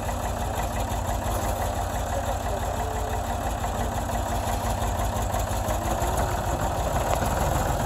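Ford 555B backhoe loader's engine running steadily at a low, even speed.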